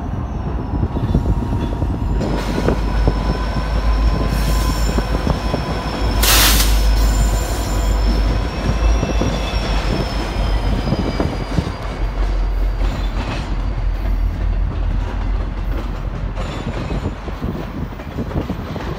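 Freight train of two diesel locomotives and empty intermodal well cars rolling past, with a steady heavy rumble and a high, sustained wheel squeal that drifts slightly in pitch. A brief loud rush of noise comes about six seconds in.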